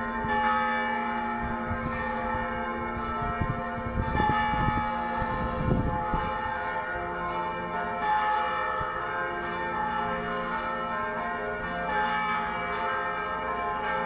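Church bells ringing, many tones overlapping and sustaining without a break. Bursts of low rumble come in about four to six seconds in.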